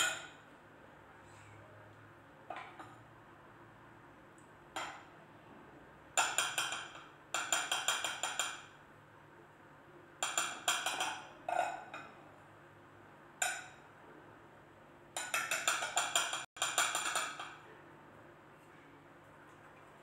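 Metal utensils clinking and scraping against a bowl of melted chocolate and a wire cooling rack. There are a few single clinks and four runs of quick repeated taps, each lasting one to three seconds.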